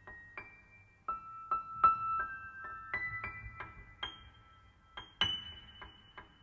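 Grand piano played solo: a slow, sparse line of high single notes that ring on, with short clipped notes struck between them. One hand works on the strings inside the instrument while the other plays the keys.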